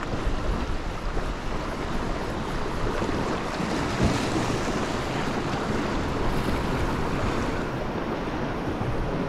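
Sea waves washing over a rocky shore, with wind buffeting the microphone; a wave breaks a little louder about four seconds in.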